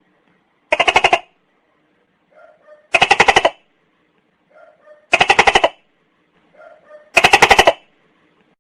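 Tokay gecko calling its repeated 'tó-kè' call: four loud, rapidly pulsed calls about two seconds apart, each of the last three led in by a soft short note.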